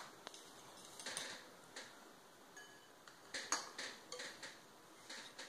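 Faint, irregular clicks and scrapes of a metal mesh sieve and a fork against a glass mixing bowl as powdered sugar is sifted and then stirred in.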